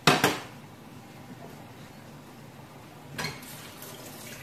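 Metal cookware clattering sharply once at the stove, with a smaller knock about three seconds later.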